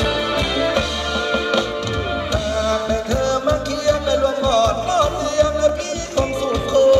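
Live ramwong dance band music, amplified: a man sings a wavering, ornamented melody over a steady drum beat.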